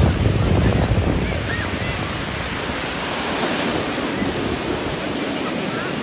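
Small waves breaking and washing up on a sandy beach in a steady rush, with wind buffeting the microphone, strongest in the first second or so.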